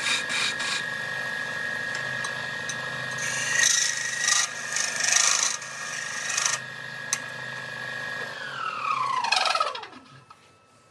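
Wood lathe running with a steady whine while something scrapes against the spinning wood in rough bursts. About eight seconds in, the lathe is switched off: the whine falls steadily in pitch and dies away as it spins down.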